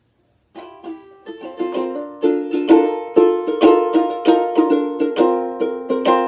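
Outdoor tenor banjolele in re-entrant gCea tuning being played. Soft plucked notes start about half a second in, then it builds to loud, bright, regularly picked chords.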